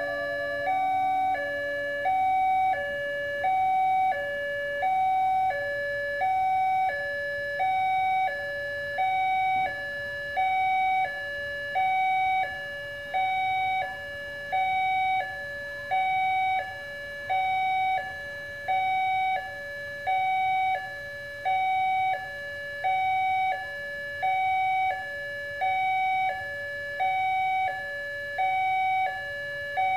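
Railway level-crossing alarm sounding from the loudspeaker on the crossing signal: an electronic two-tone warning that alternates steadily between a higher and a lower tone, about one cycle every second and a half, signalling an approaching train.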